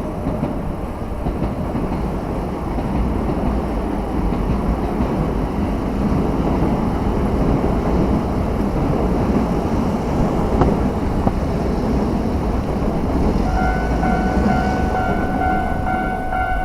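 Train passing close by: a steady rumble of wheels running on the rails. Near the end a steady ringing tone with overtones comes in over it.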